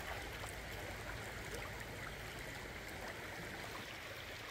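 Shallow river flowing over stones: a steady rush of running water with faint small ticks of water through it.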